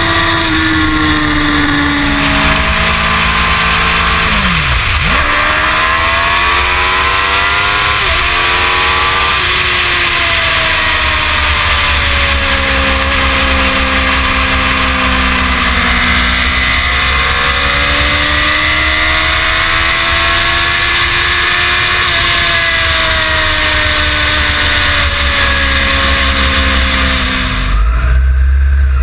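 Sportbike engine under way, heard from the bike itself under heavy wind noise on the microphone. Its pitch climbs in rising ramps broken by gear changes, then falls and rises again with the throttle. Near the end it cuts to a louder low rumble.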